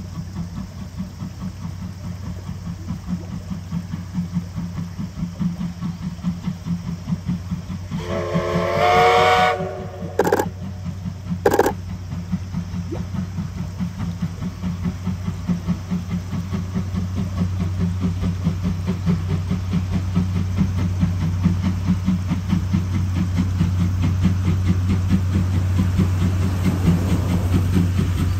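Passing steam-hauled passenger train with a fast, steady running beat. The C11 steam tank locomotive sounds its steam whistle, a chord of several pitches, for nearly two seconds about eight seconds in, followed by two short sharp bursts. The train's rumble grows louder toward the end as the coaches and the DE10 diesel locomotive at the rear come past.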